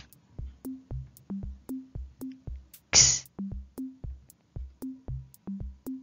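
Background music for children: a drum-machine beat with short synth-bass notes, about four a second. About three seconds in comes a short, loud hiss.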